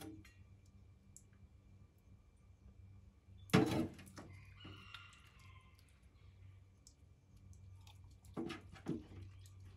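Quiet wet handling sounds of hands rubbing olive oil onto a skinned rabbit carcass over a steel sink, with small clicks and one sharp knock about three and a half seconds in.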